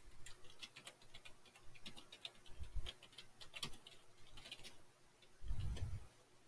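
Computer keyboard typing: faint, irregular key clicks as a short line of text is typed, with a soft low thump about five and a half seconds in.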